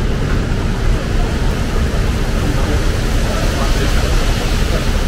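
Steady city street noise: a constant low rumble of traffic with people's voices mixed in.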